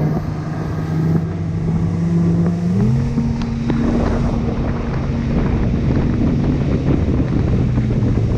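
A bass boat's 250 hp outboard motor running at speed with a steady drone that steps up in pitch about three seconds in, with wind buffeting the microphone.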